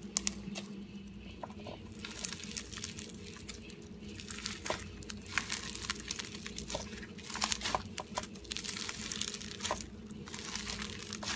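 Floam, slime packed with small polystyrene beads, being squeezed and kneaded by hand, giving dense crackling and crunching clicks in uneven clusters.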